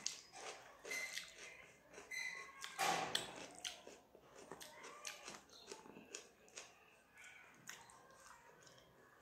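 A person eating rice by hand, with chewing and smacking mouth sounds. The smacks are loudest about three seconds in and get fainter in the second half. The fingers mixing rice on the plate add small clicks.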